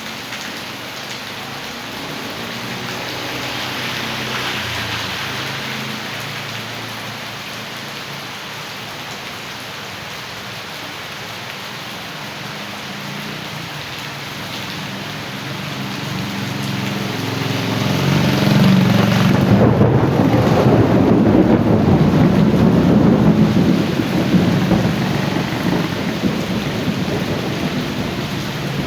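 Heavy rain pouring steadily, with a long roll of thunder that builds about two-thirds of the way through, rumbles loudly for several seconds and then slowly fades.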